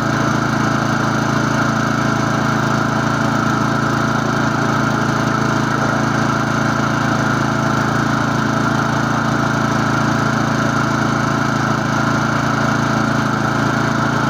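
Stiga lawn mower's Briggs & Stratton side-valve engine running at a steady speed.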